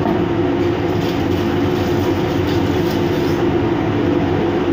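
Steady, loud machinery hum: an even rushing noise with a constant low tone.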